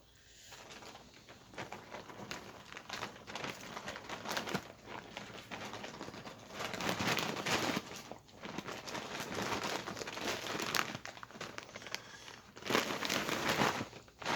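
Rustling and crinkling as a stack of comic books is handled and put back away, with louder bursts of handling about halfway through and near the end.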